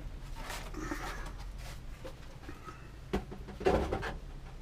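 Clicks and knocks of a nitro RC car being handled as its body clips are pulled and the body shell is lifted off, with a louder cluster of knocks a little past three seconds in.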